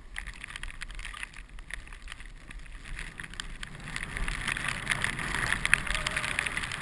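Snow hissing and scraping under a rider sliding downhill, louder from about four seconds in, with scattered knocks from the helmet-mounted camera.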